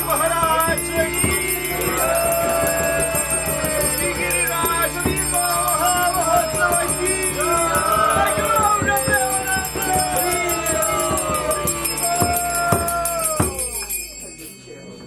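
Devotional bhajan: a man singing over a harmonium's held drone, with a steady metallic jingling keeping time. The music fades out near the end.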